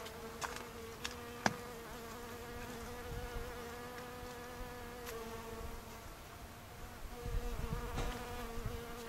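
Large leafcutter bee (Megachile willughbiella) buzzing in flight as it hovers at its nest hole in a wooden log, a steady low hum. The hum stops briefly about six seconds in and starts again a second later. A couple of sharp clicks sound about a second in.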